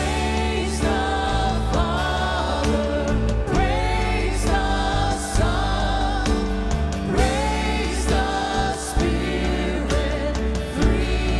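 A worship team of men and women singing a hymn together into microphones, over instrumental accompaniment with a steady bass line.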